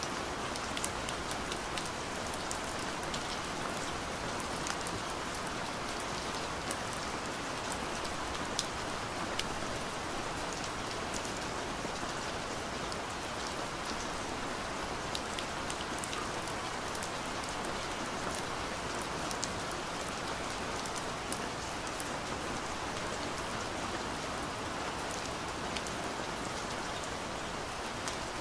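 Steady rain: an even hiss with many small, sharp drop ticks scattered through it.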